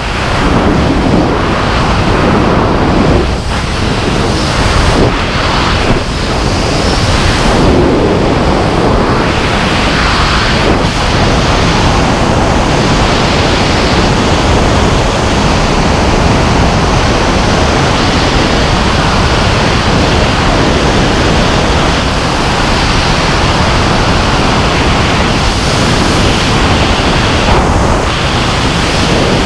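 Loud rush of freefall wind over a helmet-mounted GoPro's microphone during wingsuit flight, uneven for the first several seconds after the exit, then steady.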